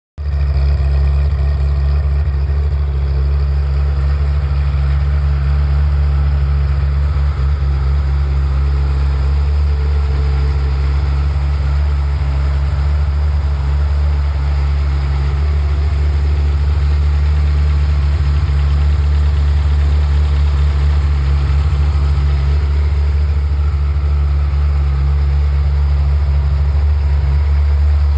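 Ferrari F355's V8 idling steadily once warmed up. It runs normally, without the abnormal noise it makes before warm-up.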